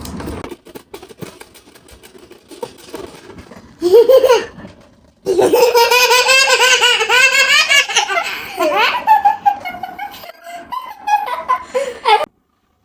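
Children laughing hard: a short burst of laughter about four seconds in, then a long, loud, high-pitched peal of laughter lasting about five seconds, trailing off into smaller giggles.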